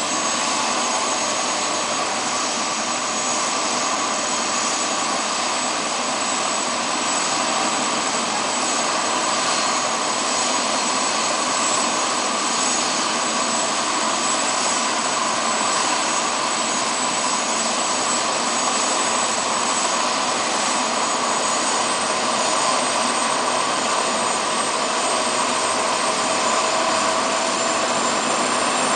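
Light single-engine turbine helicopter running on the ground, its skids on the grass, giving off a steady high-pitched turbine whine with an even rushing noise underneath.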